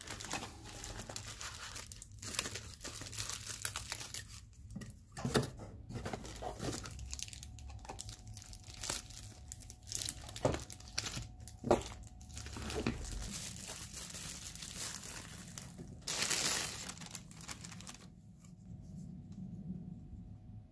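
Bubble wrap and plastic packaging crinkling and crackling as they are handled and pulled off a new camera body, with many sharp crackles and a louder tearing rasp about sixteen seconds in; the handling goes quieter near the end.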